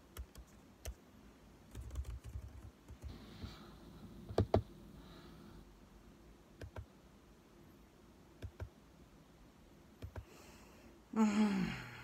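Soft scattered clicks and crunches of a mouthful of cornstarch being chewed with the mouth closed, with a short hum falling in pitch near the end.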